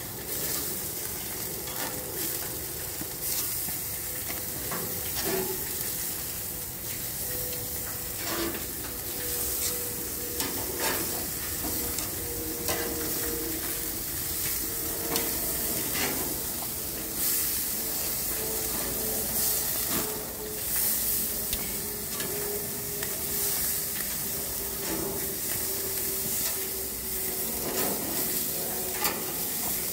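Pork chops sizzling on a gas grill as they are flipped with metal tongs, with repeated sharp clicks and scrapes of the tongs against the grates. A faint steady tone slowly falls in pitch underneath.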